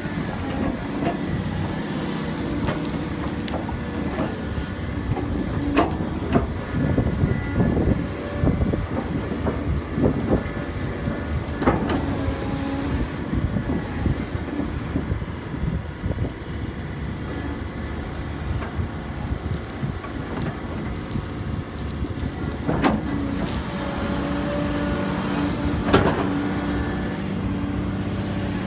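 Tracked excavator's diesel engine running steadily under load as it digs, with the bucket scooping and dumping soil. Sharp knocks and clanks of the bucket and falling clods come at intervals, the loudest about a fifth of the way in, near the middle and again late on.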